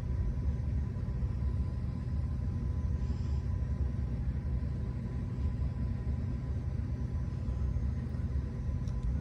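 Steady low rumble with a faint, even hum above it, unchanging throughout.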